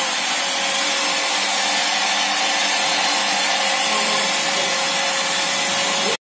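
Electric machine polisher running steadily, its foam pad buffing a car's painted door panel: a constant motor hum with a steady high whine, cutting off abruptly near the end.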